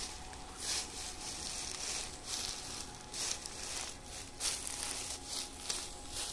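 Dry harvested mung stalks rustling and crackling in irregular bursts, about one or two a second, over a low steady rumble.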